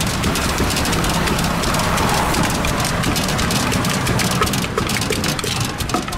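Wooden pestle pounding in a clay mortar while a spoon turns papaya salad: a quick, uneven run of knocks and scrapes over a steady low hum.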